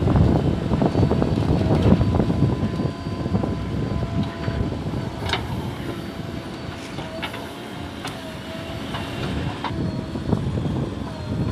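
JCB backhoe loader's diesel engine running under load while it digs and swings soil into a tipper truck, with a steady whine whose pitch dips briefly several times as the arm works. Three sharp metallic clanks come from the bucket and arm in the second half.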